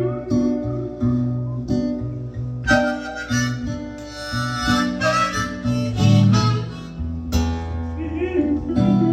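Instrumental song intro: acoustic guitar strummed in a steady rhythm, with a harmonica coming in about three seconds in and playing held, wavering melody notes over it.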